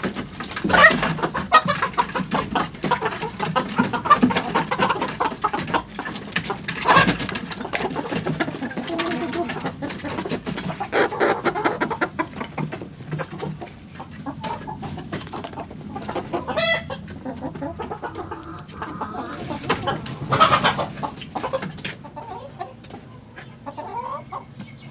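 A mixed backyard flock of chickens, silkies among them, clucking and calling as they leave the coop. Many short knocks and rustles run through it, with a few louder ones.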